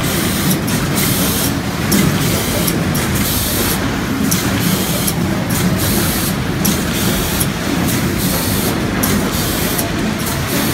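An onion packing line running: a steady mechanical hum from the conveyors and machinery, broken by short hisses of compressed air that come irregularly, about once a second.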